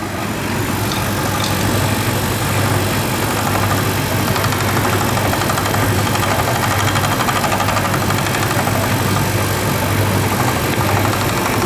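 Bosch heat-pump tumble dryer running with its panel off: a steady hum from the motor and compressor, with a mechanical noise from the worn belt-tensioner pulley. The pulley has play in its bearing and needs replacing.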